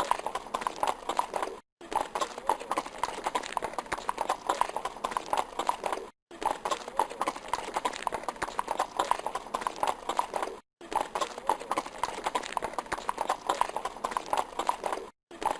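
Horse hooves clip-clopping in a quick, dense rhythm. The stretch repeats, broken by a short silent gap about every four and a half seconds.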